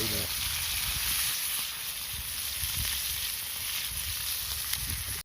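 Steak sizzling as it cooks over a campfire: a steady frying hiss with an occasional faint pop.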